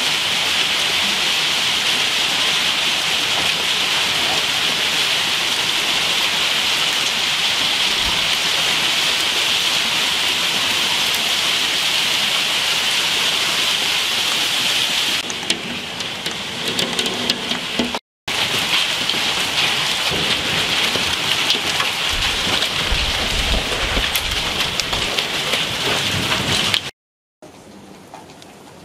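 Heavy rain mixed with hail pelting courtyard paving stones in a thunderstorm: a loud, steady hiss, with a low rumble a little past two-thirds of the way through. Near the end it cuts to a much quieter patter of rain heard indoors through a window.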